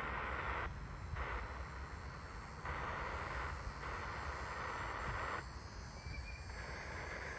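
Spirit box sweeping through radio frequencies: hissing static that cuts in and out and changes strength every half second to second and a half, with a brief faint tone about six seconds in.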